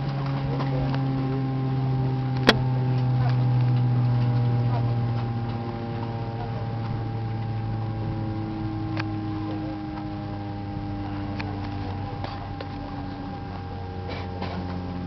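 Airliner jet engines winding down after shutdown: a steady hum of several tones slowly falling in pitch. A sharp click about two and a half seconds in, with a few fainter ticks.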